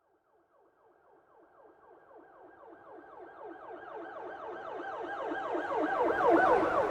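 Emergency-vehicle siren in a fast yelp, its pitch sweeping up and down several times a second. It fades in from silence and grows steadily louder, loudest near the end, as the vehicle approaches, with a low road rumble joining in as it draws close.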